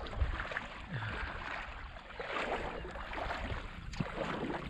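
Water sloshing and splashing around a person wading in a shallow river, uneven, with a few light knocks.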